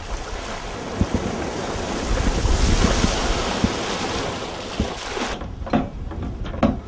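Wind buffeting the microphone over the rush of sea and waves aboard a sailing boat under way. About five seconds in the hiss cuts off sharply, leaving a low wind rumble and two short knocks.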